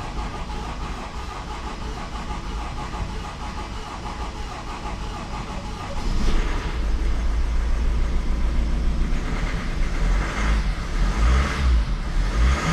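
Honda CR-V diesel engine being cranked over by the starter for several seconds while fuel rail pressure builds after a new injector is fitted. About six seconds in it catches and runs, louder and deeper, with a few surges in revs, now running on all four cylinders.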